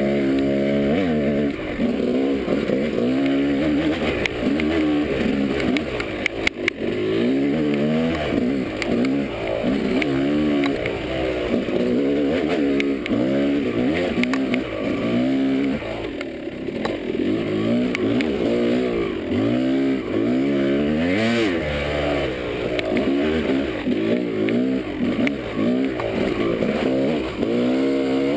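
Yamaha dirt bike engine being ridden on a trail, its note rising and falling constantly as the throttle is worked on and off, with a few sharp knocks about six seconds in.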